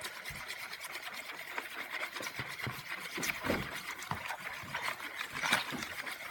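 A stirring utensil scraping round and round inside a bowl, mixing glue and water for slime, in a fast run of rubbing, scraping strokes.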